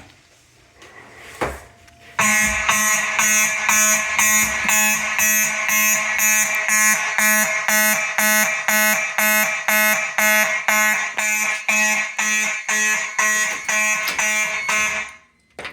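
Faraday mechanical fire alarm horns sounding a buzzing tone in even pulses, about two and a half a second, set off by activating a heat detector. They start about two seconds in, after a short knock, and cut off abruptly near the end.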